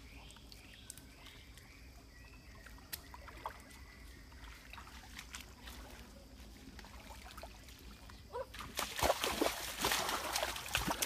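Splashing in a shallow stream as a boy wades and jabs a bamboo fish spear into the water, starting loudly about eight and a half seconds in after a stretch of faint trickling and small clicks.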